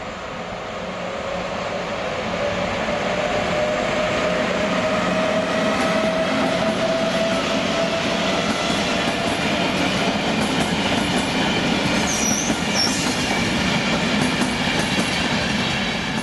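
An HŽ series 1142 electric locomotive hauling passenger coaches pulls away and accelerates, with a motor whine that climbs slowly in pitch. The whine is heard over the steady rolling of the wheels on the rails. About twelve seconds in there is a brief high wheel squeal.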